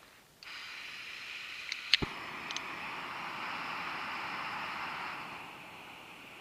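'Shmel' portable gas burner with a heater plate hissing as its gas comes on suddenly about half a second in, with a sharp click about two seconds in. The hiss drops to a quieter level after about five seconds as the flame is turned down.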